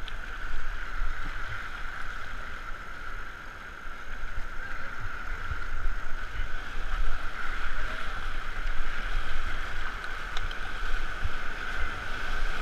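Rushing whitewater of river rapids, a steady hiss muffled by the GoPro's waterproof housing, with uneven low rumbling underneath. It grows louder about four seconds in as the boat runs into the rougher water.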